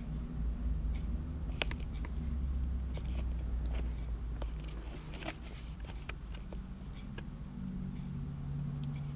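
Cat licking a dog's fur close up: irregular wet clicks and smacks of its tongue, over a low steady hum.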